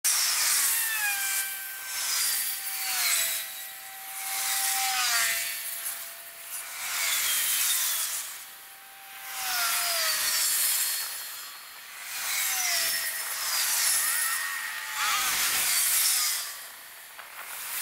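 Squealing and grinding from the approaching diesel train's steel wheels on poorly maintained track: a high rasping hiss that swells and fades about every two seconds, with drawn-out squeals that slide down in pitch several times.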